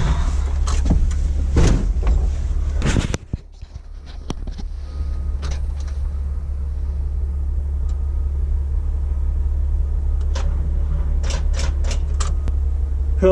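A diesel engine idles as a steady low rumble. Scattered clicks and knocks of handling come over it, mostly in the first few seconds and again near the end, and the rumble drops briefly about three seconds in.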